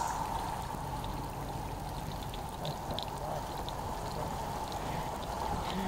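Muddy flash-flood water running in a shallow sheet over sand, a steady wash of flowing water with a few faint ticks.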